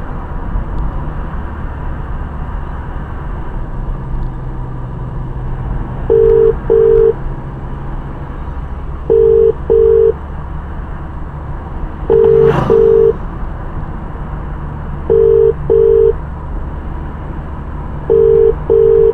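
Car cabin noise from engine and tyres, with a telephone ringback tone starting about six seconds in: a double ring that repeats every three seconds, five times, as an outgoing call rings.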